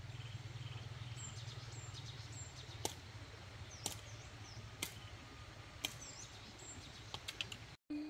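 Outdoor ambience: a low, steady rumble with faint bird chirps, and a sharp tick about once a second for a few seconds in the middle. The sound drops out briefly near the end.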